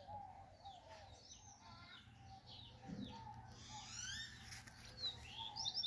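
Several birds singing and chirping together: high sweeping chirps and trills over a lower call repeated again and again, with a quick run of high chirps near the end.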